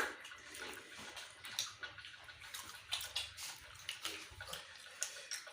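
Soft, irregular wet clicks and smacks of eating with the hands: rice and chicken curry being mixed and chewed.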